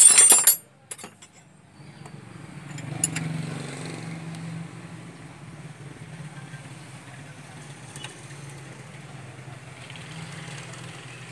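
A loud, sharp metallic clatter right at the start, then a steady low engine hum in the background. A few light metal clinks come through as hands work on the engine's timing belt and pulleys.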